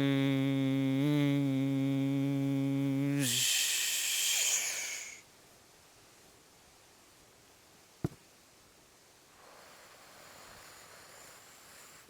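A man hums one steady low note that bends down and stops about three seconds in. A long breathy exhale follows. After that it is quiet, with a single sharp click near the middle.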